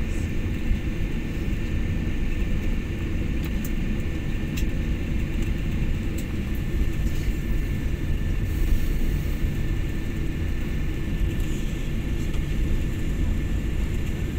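Cabin noise of a jet airliner taxiing after landing: the steady low rumble of the engines at idle and the rolling airframe, with a faint steady high whine over it.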